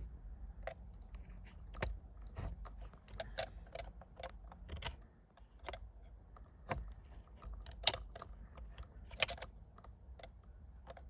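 Irregular small clicks and taps of a screwdriver prying at the steering-wheel airbag module's plastic connector locks and unplugging the connectors, with a couple of sharper snaps about two-thirds of the way through.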